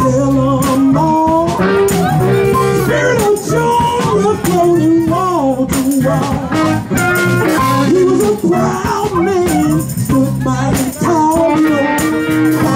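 Live blues song: a woman singing into a microphone over accompaniment with a steady beat.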